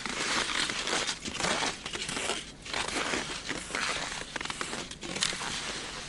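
Skis crunching and creaking on dry, frozen snow in a steady stride, each push swelling and easing about once a second.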